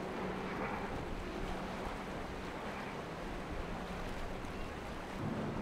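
A motorboat engine running steadily as the boat crashes through rough, choppy water, with the rush of waves and spray and wind over it.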